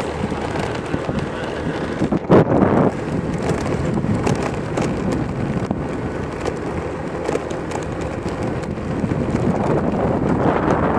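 Wind buffeting a phone microphone on a moving vehicle, over steady road and motor noise. A loud gust hits about two seconds in, and the wind rises again near the end.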